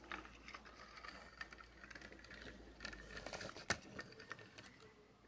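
Diecast Corgi Major car transporter pushed by hand across a textured mat: faint scraping and rolling of its small metal-model wheels with scattered light clicks, and one sharper click about two-thirds of the way through.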